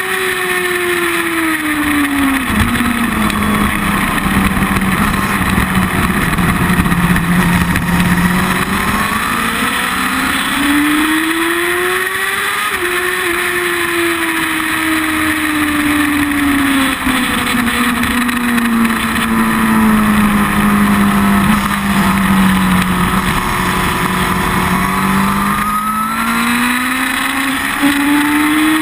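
Sport motorcycle's engine heard close to its carbon-fibre end-can exhaust at track speed, with wind and road noise. The engine note drops sharply about two and a half seconds in and stays low, climbs again around ten to twelve seconds, eases down slowly, and climbs once more near the end.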